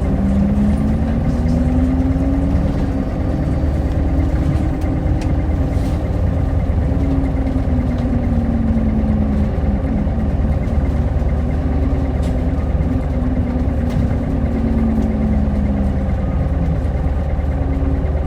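Hino Blue Ribbon Hybrid city bus running, its engine tone climbing in pitch over the first few seconds as it picks up speed, then easing slowly down, with a steady low hum underneath.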